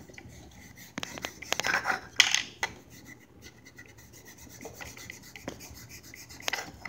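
A hand rubbing chalk off a small chalkboard in uneven dry strokes, with a few sharp knocks, loudest about two seconds in.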